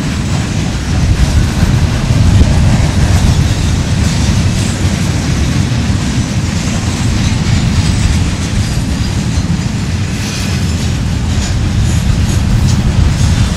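Freight cars of a mixed freight train (gondolas, tank cars and covered hoppers) rolling past: a steady, loud rumble of steel wheels on rail, with the click and clatter of wheels over the rail, more of it in the last few seconds.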